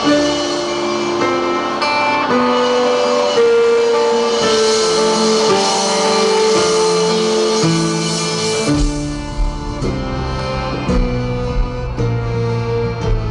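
Live rock band playing an instrumental passage: electric guitar and keyboard hold sustained notes, then bass and drums come in heavily about nine seconds in.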